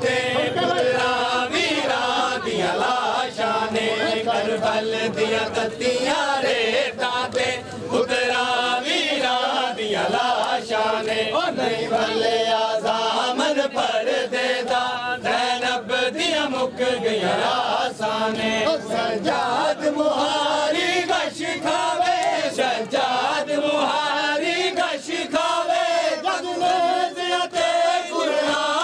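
A crowd of men chanting a Muharram mourning lament (noha) together, with the sharp slaps of matam, hands beating on chests, breaking in through it.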